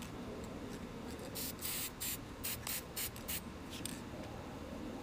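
Aerosol can of silver spray paint sprayed through a cardstock stencil in a quick series of short hissing bursts, about eight of them, starting about a second and a half in.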